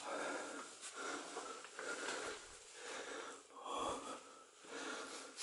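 A person breathing heavily close to the microphone, soft in-and-out breaths that rise and fall about once a second.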